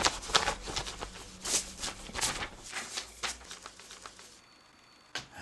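A sheet of paper rustling and crackling as it is handled, a run of short sharp crinkles over the first three seconds or so, followed by a single click near the end.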